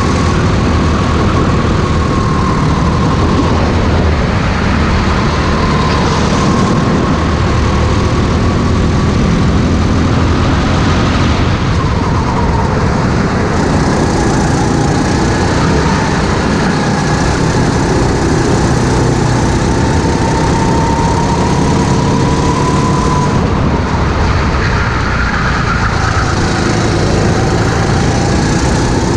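Racing go-kart engine running hard, heard onboard. Its pitch climbs slowly along the straights and drops back into the corners, with a long rise in the second half and a fall a few seconds before the end.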